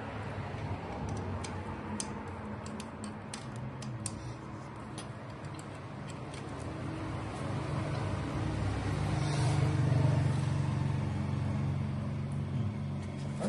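Small metal clicks and ticks of a hex key working a bolt on a motorcycle engine during the first few seconds, over the low rumble of a motor vehicle that grows to its loudest about ten seconds in and then eases off.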